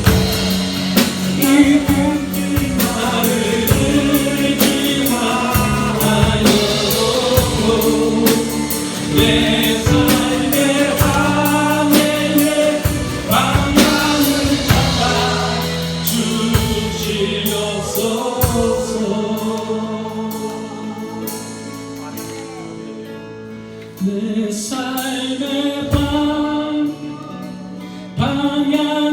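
Church praise band playing a gospel worship song with singers, drums keeping a steady beat. It grows softer for a few seconds in the second half, then swells back up with a louder strike.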